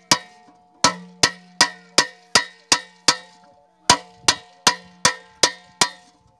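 Hammer blows on an aluminium patch being nailed over a leak in the bottom of an upturned metal dekchi (cooking pot). A steady run of sharp strikes, about two and a half a second, each leaving the pot ringing briefly, with a short pause a little after halfway.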